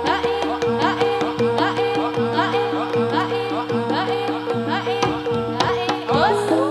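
Live Javanese gamelan accompaniment for jathilan: hand-drum strokes with upward-swooping pitch in a brisk repeating rhythm, over steady ringing metallophone tones.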